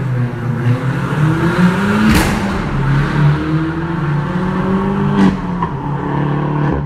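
Vauxhall Corsa VXR's turbocharged four-cylinder accelerating hard away through the gears, its note rising twice. A sharp exhaust crack comes at each gear change, about two and five seconds in.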